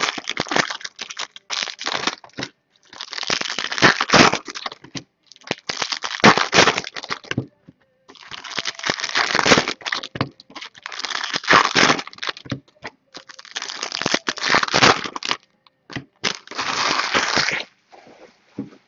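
Foil trading-card pack wrappers being torn open and crinkled by hand: a run of crackling rustles, each lasting a second or two, with short gaps between.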